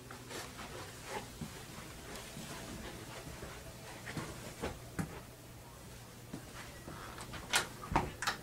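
Soft footsteps along a hallway, then a few sharp clicks near the end as a door's knob and lock are worked to open it.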